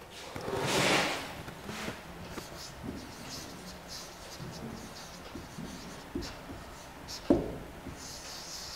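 Marker pen writing on a whiteboard in a series of short, faint strokes, with two light knocks a little over a second apart in the second half. A louder rustle about a second in is the loudest sound.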